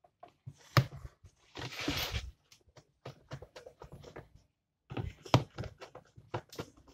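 Irregular clicks, taps and knocks of a long screwdriver working against the plastic motor base of a blender while its screws are undone, with a short scrape about two seconds in.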